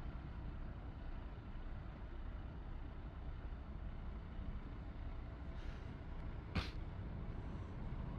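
Steady low outdoor rumble, with one sharp click about two-thirds of the way through.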